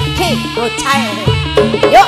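Jaranan dance accompaniment played live and amplified through a sound system: drumming and pitched percussion with sliding, bending tones.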